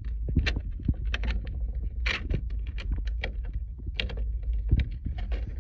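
Quick, irregular small clicks and rattles of parts being handled by hand, over a steady low rumble.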